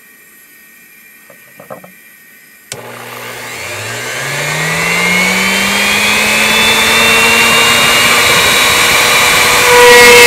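Router spindle on a homemade CNC machine switching on about a third of the way in, its pitch rising for several seconds as the motor comes up to speed, then running steadily. Near the end the sound gets suddenly louder with an added steady higher whine, as the machine moves the bit toward the pine.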